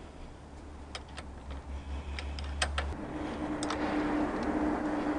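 Light metallic clicks of a wrench and battery terminal clamps being worked onto a car battery's posts, a few scattered clicks. From about three seconds in, a steady hum with a faint tone rises underneath.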